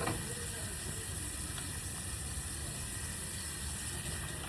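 Tap water running steadily into a sink while hands are washed under it.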